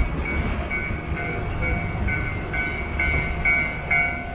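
Kushiro Shitsugen Norokko train pulling slowly out of the station, a steady low rumble of the moving train. Over it, a bell dings evenly about twice a second.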